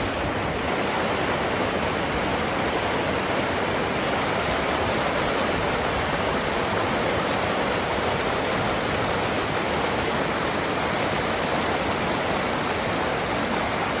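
Creek water rushing over and around boulders in shallow white-water rapids, a steady, unbroken rush.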